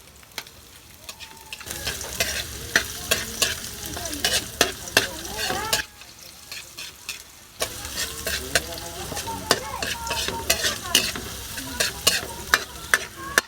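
Garlic and ginger sizzling as they sauté in oil in a pan, with a spatula scraping and clicking against the pan as they are stirred. The stirring stops for a moment about six seconds in.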